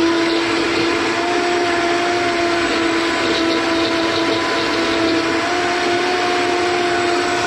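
Vitamix blender running steadily as it purees gazpacho, a loud motor whine over the churning of the soup, its pitch stepping up slightly about a second in.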